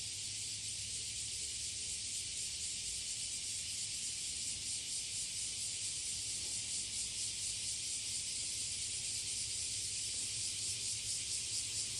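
A chorus of cicadas singing in a dense, high-pitched hiss, with a fast, even pulsing that becomes plainer from about four seconds in.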